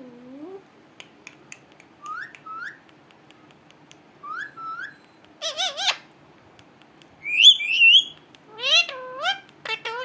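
Indian ringneck parakeet giving a string of short rising whistles and squawks a second or two apart. The loudest calls come about three quarters of the way through, then a quick run of calls at the end.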